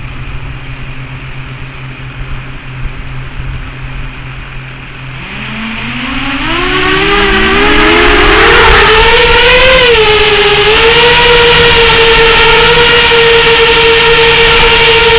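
FPV quadcopter's brushless motors spinning up: a low hum, then from about five seconds in several whines rise in pitch separately and merge into one loud, steady motor whine.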